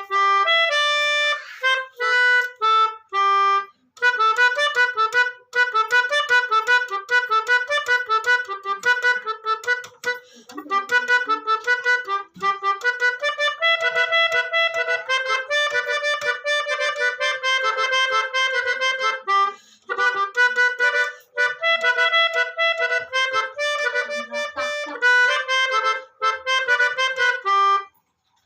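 Basuri telolet horn, a set of multi-tone bus horns, playing a jingly melody of quick short notes and chords, with a few brief pauses.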